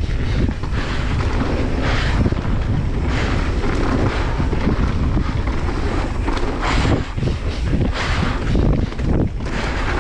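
Wind rushing over the microphone of a camera on a mountain bike riding downhill, over a steady low rumble from the tyres and frequent uneven knocks from the bike on rough ground.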